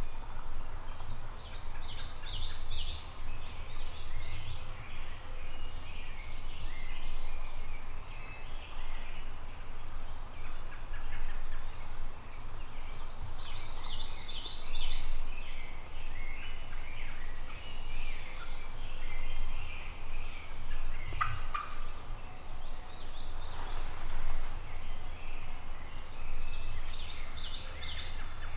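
Wild turkey gobbler gobbling three times, about twelve seconds apart, with other birds calling between gobbles over a steady low rumble.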